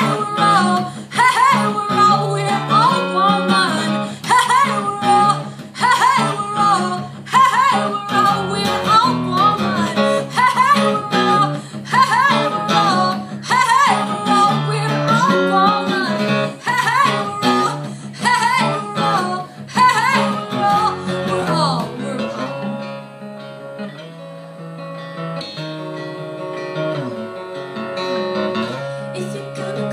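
Acoustic guitar played as an instrumental passage: hard, rhythmic strumming with melodic note lines over it, easing about two-thirds of the way through into quieter, ringing picked notes.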